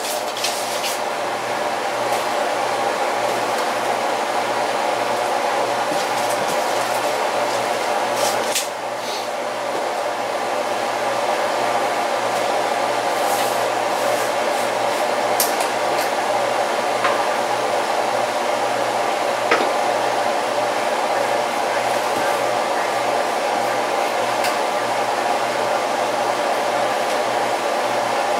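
A fan running steadily with an even rushing whir and a low hum beneath it, with a few faint clicks.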